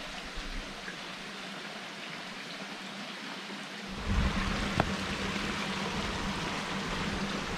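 Outdoor wind: a steady rushing noise, then gusts buffeting the microphone with a low rumble from about halfway through. One sharp click comes shortly after the gusts begin.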